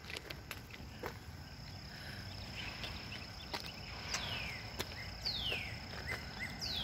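A bird singing outdoors, repeating a loud downward-slurred whistle three times in the second half, with softer short chirps between. Under it runs a steady high insect drone, and scattered sharp ticks.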